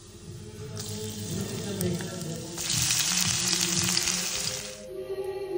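Spices sizzling in hot oil in a wok. The sizzle grows much louder about halfway through, with chopped red onion frying in the oil, then cuts off near the end. Background music plays throughout.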